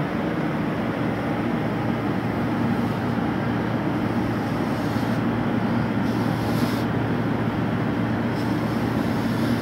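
Steady machine hum with an even rushing noise, unchanging throughout; a faint high hiss comes and goes twice in the second half.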